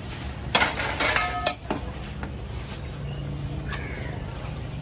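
A quick run of sharp metallic clinks with short ringing tones, metal utensils knocking against cookware, starting about half a second in and over before two seconds, over steady low background noise.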